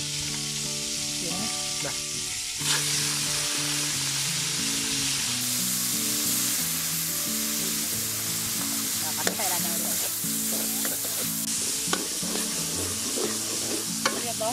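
Squid pieces frying in hot oil in a metal wok over a wood fire: a steady sizzle that jumps louder about two and a half seconds in as the squid goes into the oil. A few sharp taps of the stirring ladle against the wok from the middle on.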